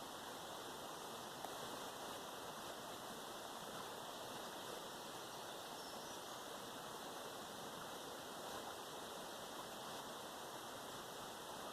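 Steady faint hiss, even throughout, with no distinct sounds standing out.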